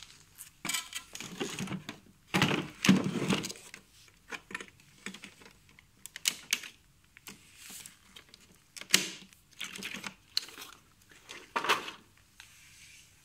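Hard plastic tool case and its clear plastic accessory box being handled and opened: an irregular run of clicks, knocks and rattles from the latches, lid and plastic shell, loudest about three seconds in.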